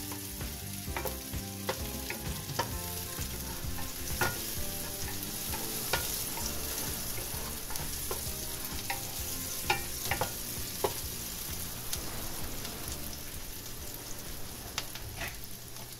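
Sliced onions and garlic sizzling in hot oil in a nonstick pot, with a steady hiss. A wooden spoon stirs them, giving scattered sharp clicks as it knocks against the pan.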